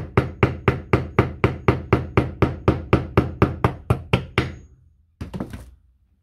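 A steel hammer gently tapping a replacement ball bearing onto the motor shaft of a Makita DGA463 angle grinder: quick, even metallic knocks at about four a second that die away about four and a half seconds in, then a brief clatter a moment later.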